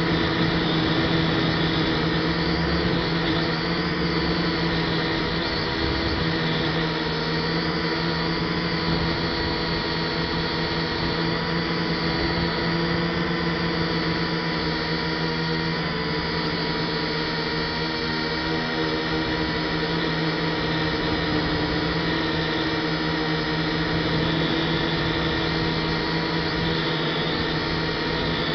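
Small F183DH quadcopter's motors and propellers whirring steadily, heard through its own onboard camera. The pitch wavers a little about two-thirds of the way in as the motors change speed.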